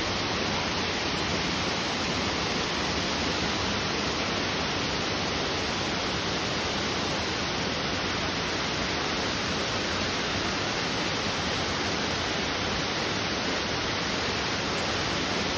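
Waterfall: a steady, unbroken rush of falling water, even from low to high pitch.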